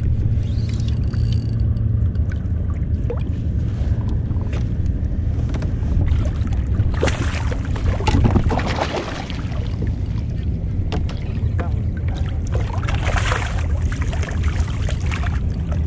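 Water splashing and lapping against a fishing kayak's hull, over a steady low rumble. The splashing comes in two stronger spells, about halfway through and again near the end.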